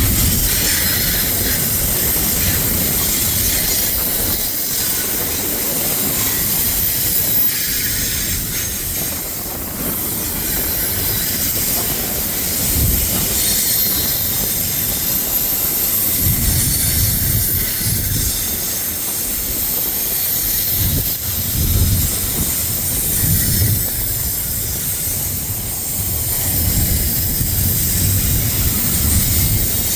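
Freight train cars rolling past on the rails: a steady rumble with a high wheel squeal over it and irregular low thumps from the wheels.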